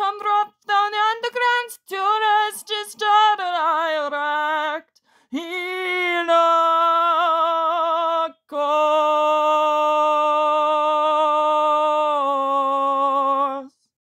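A woman singing a cappella. A few short sung notes are followed by long held notes with a wavering vibrato. The last note is held about five seconds, drops slightly in pitch near the end, and then stops.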